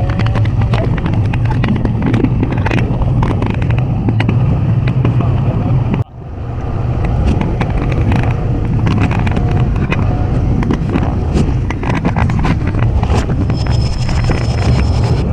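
Chain lift of a Rocky Mountain Construction wooden roller coaster: a steady low rumble of the lift chain and drive, with dense rapid clattering of the chain and anti-rollback dogs, with the recording running in reverse. The sound drops out sharply for a moment about six seconds in, and a thin high tone comes in near the end.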